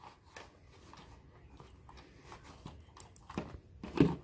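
Faint clicks and rustles of a power cord being handled and its plug pushed into a plastic power strip, with a sharper knock about four seconds in.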